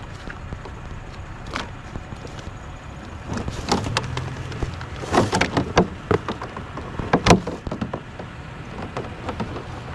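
Scrap being picked through and handled by hand: irregular clanks, knocks and clicks of metal and plastic, busiest from about three to eight seconds in, over a steady low hum.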